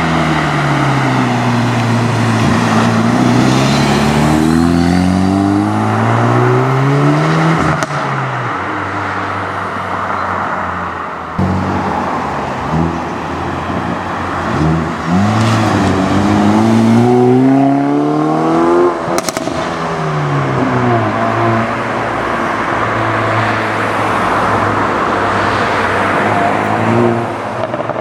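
Hyundai i30N turbocharged four-cylinder engines accelerating hard in two runs, the pitch climbing and dropping through the gear changes, each run ending in a sharp exhaust pop.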